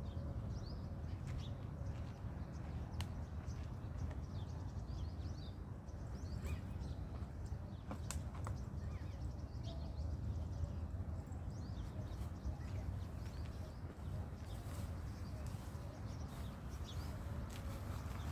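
Small birds chirping in short, scattered calls over a steady low rumble, with a few sharp clicks about eight seconds in.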